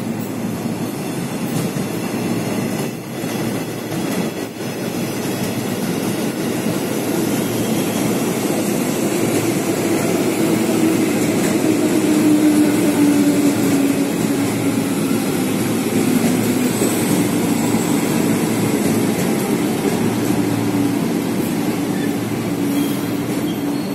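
Ex-JR 205 series electric commuter train running in along the platform with a steady rumble that builds as it comes alongside. A low motor hum drops slowly in pitch through the second half.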